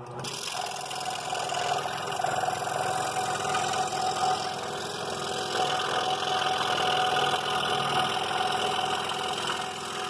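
Scroll saw running, its blade cutting through a thin wooden workpiece: a steady mechanical buzz with a faint hum.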